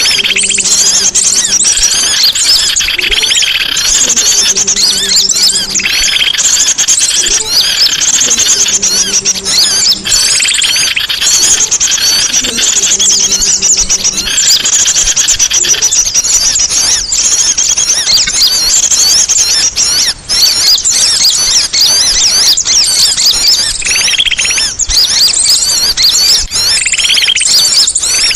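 Songbird singing without pause in a dense, rapid stream of high chirps, trills and whistles. A low steady hum sounds several times in the first half, each time for about a second.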